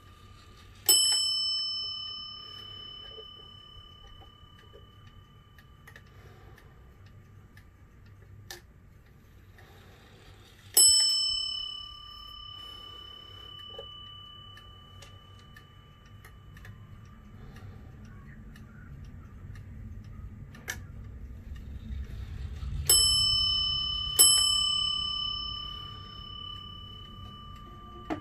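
Warmink Dutch wall clock's bell strike sounding as its minute hand is turned by hand. The bell strikes once about a second in, once about ten seconds later, then twice a little over a second apart near the end, each strike ringing on and slowly fading. A few faint clicks fall between the strikes.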